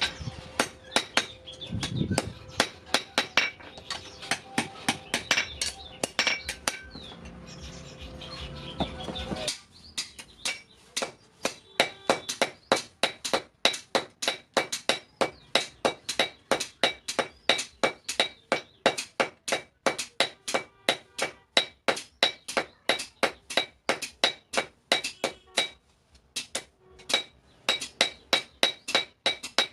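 Hand hammer striking steel on an anvil in rapid, even blows of about three a second, each with a bright metallic ring, as a blade is forged. A steady hum runs under the blows for the first ten seconds or so and cuts off abruptly.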